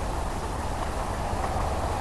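Steady wind rumble on the microphone over water moving and lapping around a wading angler.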